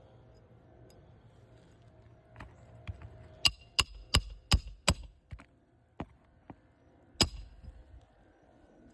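Hammer driving roofing nails into asphalt shingles: five quick, ringing blows about a third of a second apart, a few lighter taps, then one more hard blow.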